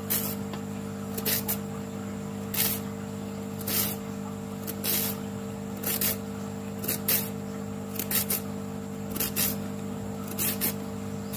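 Hand-held vegetable peeler scraping the skin off a raw carrot: a run of short scraping strokes, often in pairs, roughly one or two a second, over a steady low hum.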